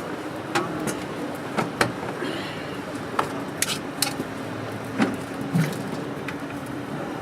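Irregular clinks and knocks of metal cookware and utensils being handled, about a dozen over several seconds, some ringing briefly. A faint steady low hum runs underneath.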